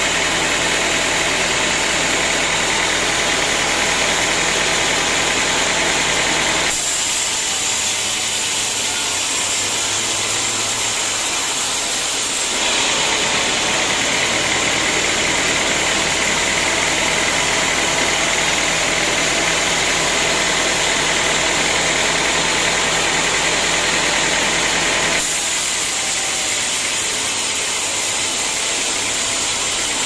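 Band sawmill running and sawing a teak log: a steady motor hum under a bright hiss from the blade. The sound shifts abruptly three times, at about a quarter, nearly halfway and near the end.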